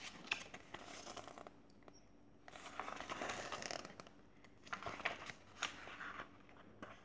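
Faint rustling of a paperback picture book's pages as the book is handled and the pages are turned, in two stretches of about a second or more each, followed by a few light taps.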